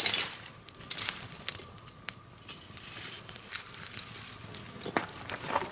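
Swedish torch (a slotted log burning from the top) crackling, with irregular sharp pops and snaps over a soft hiss of flame.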